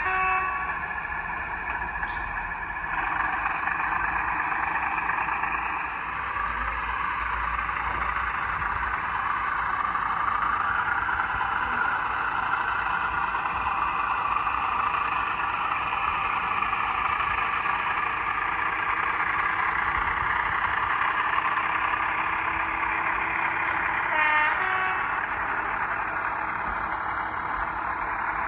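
Class 14 diesel-hydraulic locomotive sound file playing from a Zimo DCC sound decoder through the small speaker of an OO gauge model: the diesel engine runs steadily, its note shifting a little in the first few seconds. A short horn blast sounds at the very start and another about 24 seconds in.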